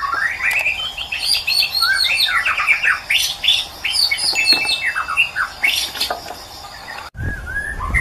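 White-rumped shama singing a fast, varied song of whistles and trills. About seven seconds in, the recording cuts to a stretch with a low rumble and a few separate whistled notes.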